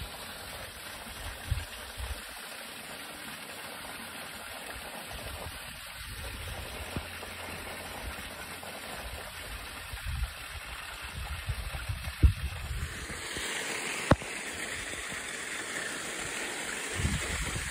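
Water running steadily into a garden pond as it is topped up, a continuous splashing rush that grows brighter about thirteen seconds in. A few low bumps on the microphone.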